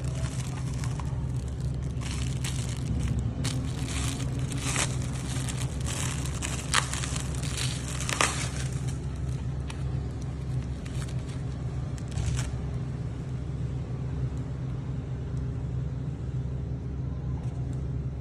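Thin clear plastic film crinkling and tearing as it is pulled off a toilet paper roll, with a couple of louder crackles in the middle; the crinkling stops about twelve seconds in. A steady low hum sits underneath.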